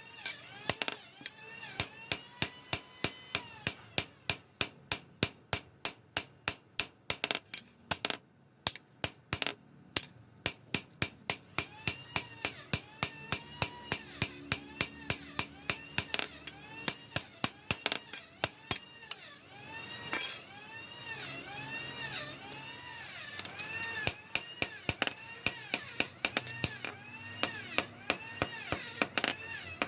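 A hammer striking metal over and over at a steady pace, about two to three blows a second, each blow leaving a brief metallic ring.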